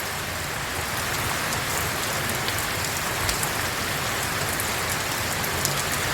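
Heavy rain pouring steadily, an even hiss with scattered drop ticks.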